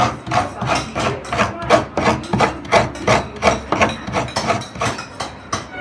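Half a coconut being scraped against the toothed metal blade of a coconut scraper, shredding the white flesh. The scraping strokes are rhythmic, about three a second.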